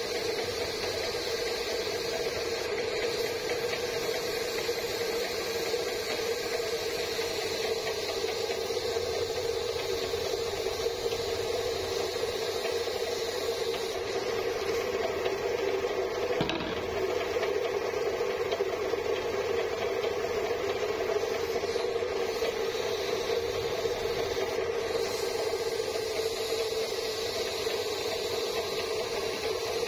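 Workshop machine running steadily: an unchanging hum with hiss over it, with one faint knock about sixteen seconds in.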